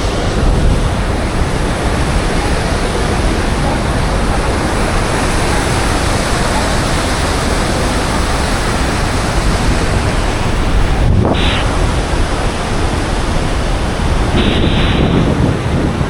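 Heavy waterfall at Iguazú Falls, heard close below the falls: a loud, steady rush of falling water. Two short louder bursts of noise come about 11 and 14 seconds in.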